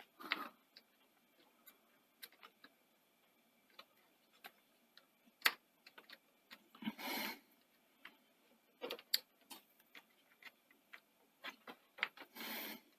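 Quiet, irregular small clicks and taps of hands working on a Betamax video recorder's deck mechanism, with three brief rustling scrapes: near the start, about halfway, and near the end.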